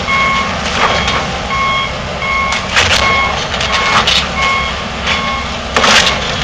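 Building demolition by excavator: debris crashes and breaks several times, the loudest about three seconds in and near the end, over a steady diesel machine rumble. A backup alarm beeps repeatedly throughout.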